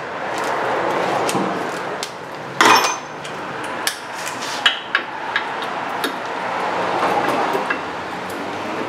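Metal brake parts and hand tools clinking and clanking as they are handled and set down, with one sharp ringing metal clank about three seconds in and a few lighter clicks after it, over steady background noise.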